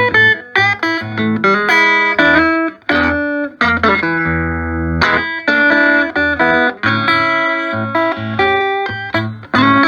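Telecaster-style electric guitar played through a 1968 Fender Twin Reverb amp fitted with a 15-inch JBL speaker: a phrase of picked single notes and chords, with one note held for about a second near the middle. This is the amp's sound check after restoration.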